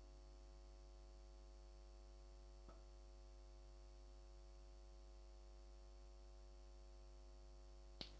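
Near silence with a steady electrical hum, broken by a faint click about a third of the way in and a sharper click near the end.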